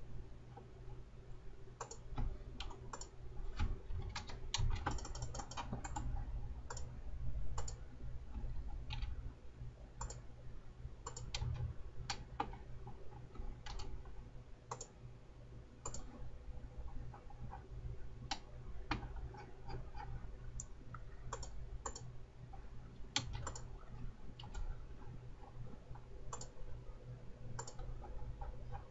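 Computer mouse clicks and keyboard keystrokes at an irregular pace, with a quick run of clicks about five seconds in, over a steady low hum.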